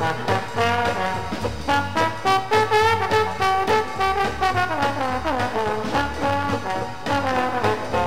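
Instrumental music played from a 1960s vinyl LP of banjo and percussion: a lively melody over a steady bass beat, with a run of sliding, falling notes about five seconds in.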